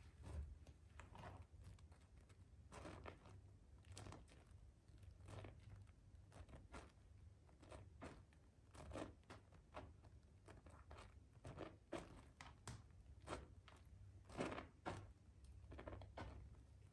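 Hands squeezing and kneading soaked, mushy Palmolive bar soap in a basin of foamy water: faint, irregular squishes and crackles of wet soap and lather, with a few louder squelches.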